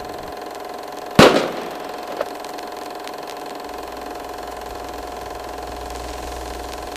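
Logo-intro sound effect: a sharp hit about a second in, then a steady humming drone of held tones, with a low rumble joining after about three and a half seconds.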